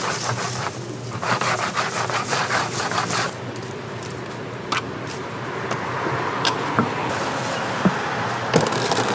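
Fried donut balls shaken out of a wire mesh strainer onto a paper-lined tray: a rapid rasping scrape of mesh and rolling balls that stops about three seconds in. After it come a few sharp clicks of metal tongs handling the donuts.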